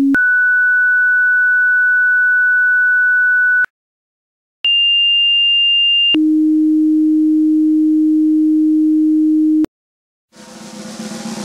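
Fire dispatch alert tones: a steady high tone for about three and a half seconds, a one-second pause, a higher tone for about a second and a half, then a long low tone for about three and a half seconds. Rock music fades in near the end.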